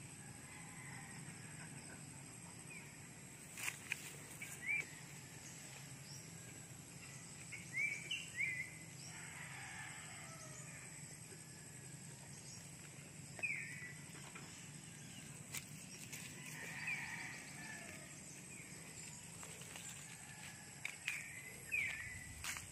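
Faint outdoor ambience: short rising bird chirps every few seconds over a steady hiss with a thin high-pitched tone, with a few sharp clicks.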